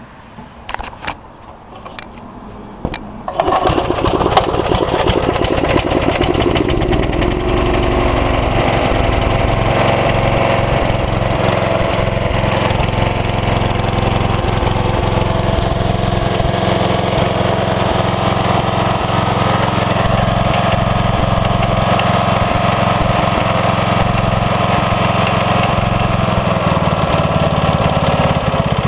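Briggs & Stratton 9 horsepower engine on a riding mower being key-started: a few sharp clicks, then it catches a little over three seconds in and runs steadily.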